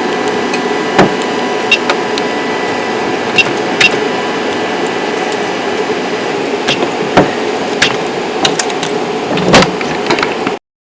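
XYZprinting Da Vinci 1.0 3D printer running: a steady motor whine and fan hum with scattered sharp clicks. It cuts off suddenly near the end.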